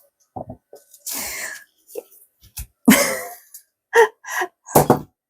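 A woman's short, breathy vocal sounds: two noisy exhalations followed by a few brief murmured sounds near the end.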